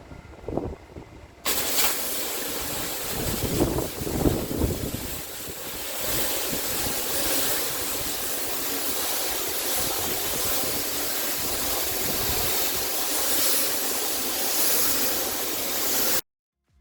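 Pressure washer jet spraying onto patio paving: a steady, loud hiss that starts abruptly about a second and a half in and cuts off suddenly near the end.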